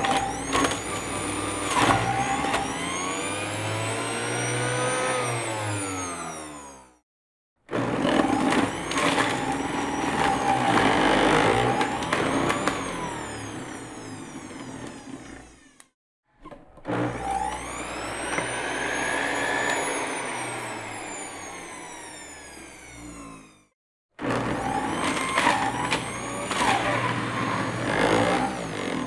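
Electric blender motor run four times in a row, each run lasting several seconds, with short silent gaps between. In each run the motor's whine climbs and then sinks in pitch as the blades speed up and slow down.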